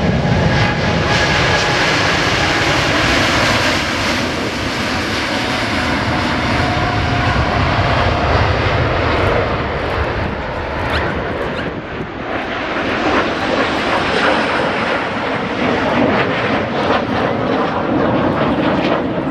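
Boeing 747-8 Intercontinental's four GEnx-2B jet engines at takeoff thrust as the airliner rolls down the runway, a loud steady jet noise with a faint whine early on. The deep rumble thins after the first few seconds as the aircraft moves away.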